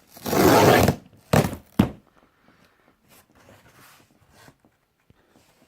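A shoe box being handled: a brushing scrape of under a second, then two sharp knocks about half a second apart as it is set down.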